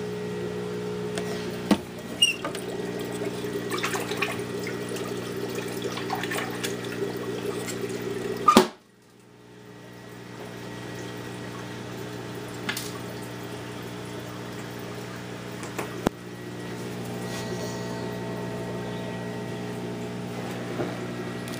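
Aquarium filter running: a steady motor hum under water splashing and trickling into the tank. A few knocks break in, the loudest about nine seconds in, followed by a brief quieter stretch before the hum returns.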